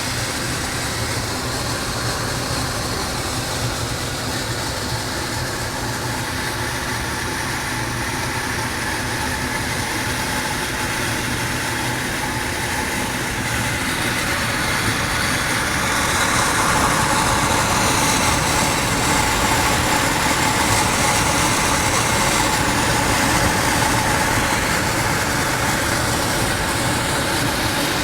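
A machine running steadily with a low hum. It gets louder and brighter about halfway through.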